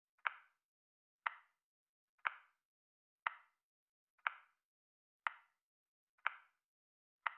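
Countdown timer ticking once a second: eight short clicks in a steady rhythm, each fading quickly, with silence between.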